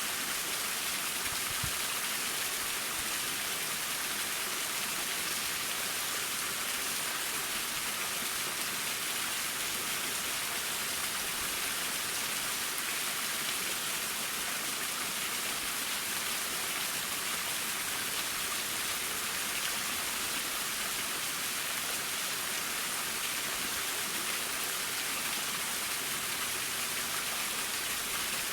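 Waterfall: water pouring down and splashing in a steady, unbroken hiss.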